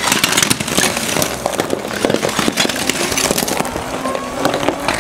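Mini loader's engine running while it drives and lifts a bucket heaped with broken terracotta roof tiles, over a dense, continuous clatter and crunch of the tile pieces.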